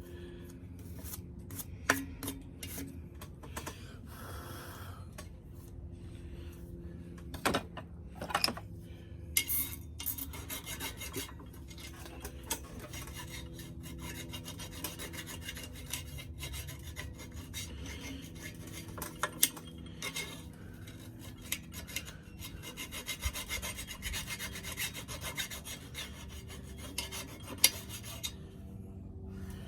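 Cordless drill turning at low speed, its bit grinding through metal to bore a bolt hole, with a steady motor hum under a scratchy cutting noise and a few sharp clicks. The cutting gets denser about a third of the way in.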